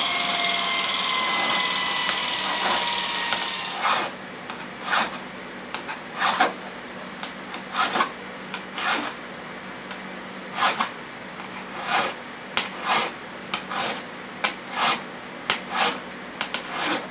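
A hand file scraping across a steel pry bar in separate strokes, about one a second, filing the freshly ground blade seat flat. For the first few seconds a grinder is still spinning down, its hum falling in pitch, before the filing begins.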